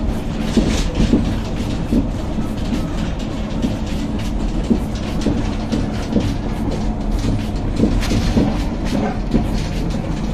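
Inside the rear compartment of a moving ambulance: steady road and engine drone with constant rattling and clattering of the loose fittings in the cabin.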